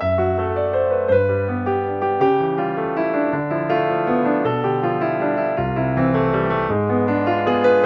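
Background music: a gentle piano piece, with bass notes under a melody that moves from note to note at an even pace.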